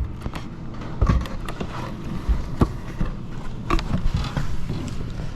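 Irregular thumps and knocks, a few of them every second or so, over a steady low rumble.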